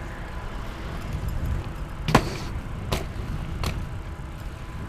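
A BMX bike rolling over a concrete sidewalk: a steady low rumble of tyres and wind, with three sharp knocks about two, three and three and a half seconds in, the first one the loudest.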